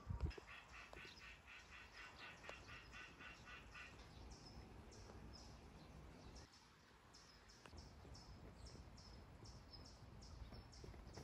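Faint animal calls: a quick run of about a dozen evenly spaced pulsing notes over the first four seconds, with short high calls repeating about twice a second throughout. A low thump at the very start is the loudest sound.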